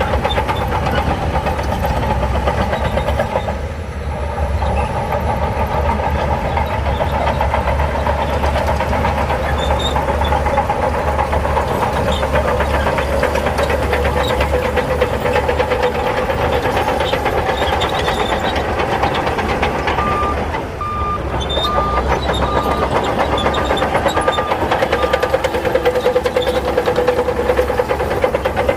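Heavy earthmoving machine's diesel engine running steadily, easing off briefly twice. About two-thirds of the way through, a reversing alarm beeps about eight times.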